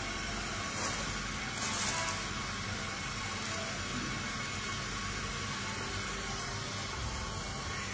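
Steady hiss, with two brief higher rustling bursts in the first two seconds.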